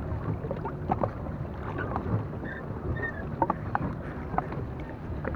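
Small boat moving on the water: a steady low rumble with irregular splashing and lapping against the hull, and wind on the microphone.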